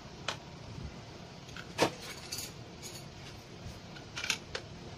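A screwdriver clicking and scraping against a screw and the engine housing as a screw is driven into the cover of a Honda GX35 trimmer engine: a few short, sharp clicks, the loudest about two seconds in and a small cluster near the end.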